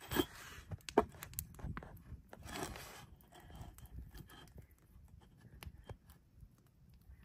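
Wood fire crackling under a cast-iron Dutch oven in a steel fire pit: irregular sharp pops and ticks, one louder pop about a second in.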